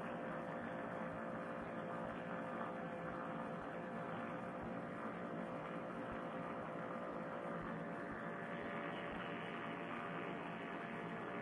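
Paramotor trike engine droning steadily in flight, heard muffled as a constant hum through a Bluetooth headset microphone; the hiss grows a little stronger about eight seconds in.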